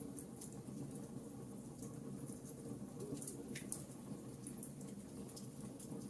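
Campfire burning with a soft low rumble and irregular small crackles and pops of the burning wood, with a brief hiss about three and a half seconds in.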